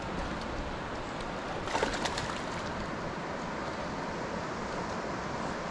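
Steady rush of a shallow river running over rocks. About two seconds in there is a short cluster of sharp clicks.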